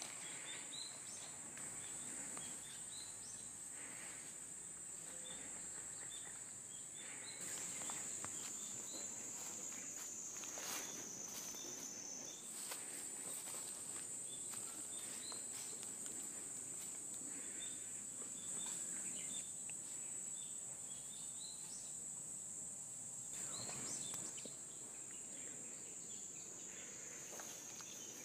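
A steady, high-pitched insect drone that shifts in pitch a few times, with footsteps crunching through dry leaf litter.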